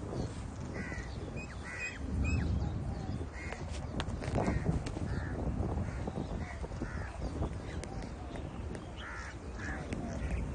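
Birds calling repeatedly in short calls, over a steady low rumble.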